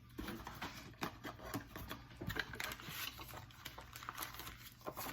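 Paper and card clues being handled and shuffled: a run of light, irregular rustles and taps.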